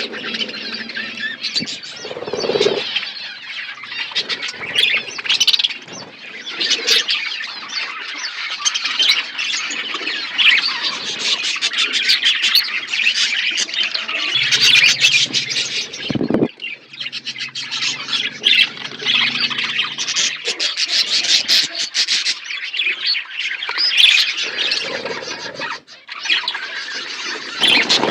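A flock of budgerigars chattering and chirping without a break, many birds calling over one another.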